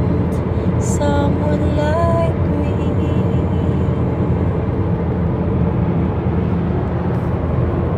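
Steady road and engine noise inside a moving car's cabin. A few short pitched, gliding sounds occur during the first couple of seconds.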